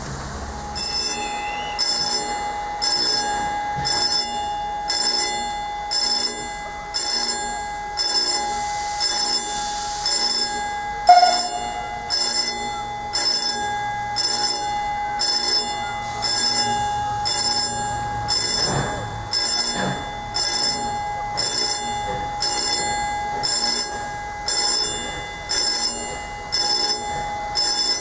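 A warning bell striking about once a second at a steady level, each stroke ringing on into the next, as a steam train approaches. A brief, louder sound stands out about eleven seconds in.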